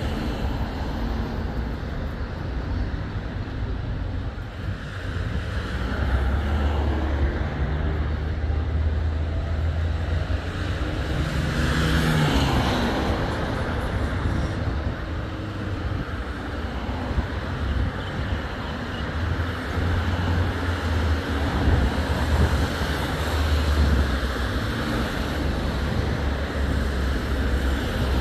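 Road vehicle noise: a steady low rumble with a hiss of tyres and wind. A louder swell of noise rises and falls about twelve seconds in.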